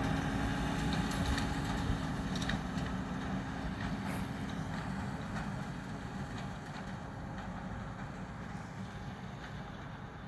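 New Holland T7 245 tractor's six-cylinder diesel engine running steadily while pulling a round baler, with a few faint clicks. The sound grows gradually fainter.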